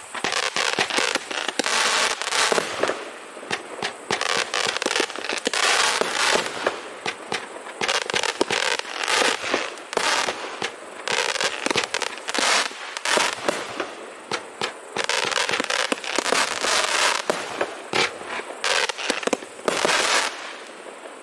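A 500 gram consumer fireworks cake, the Shogun 'Over Reaction' 30-shot, firing its shots in quick succession. Launch thumps and shell bursts are mixed with dense crackling.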